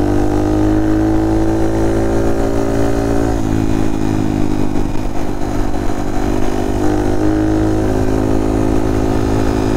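Honda Monkey with a Kitaco 181cc big-bore single-cylinder engine running steadily at road speed, together with the loud road hum of knobby Shinko Mobber tyres on pavement. The engine note sags slightly and then dips about three and a half seconds in.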